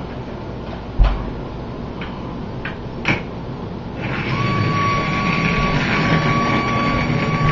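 Small electric motor and propeller fan on a remote-controlled pinewood derby car switching on about four seconds in and whirring with a steady high whine as it pushes the car along the floor. Before that, a couple of light knocks as the car is handled and set down.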